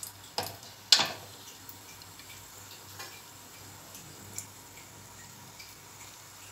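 Whole spices (cinnamon, cloves, cardamom) crackling in hot oil and ghee: two sharp pops in the first second, then occasional faint ticks as they splutter.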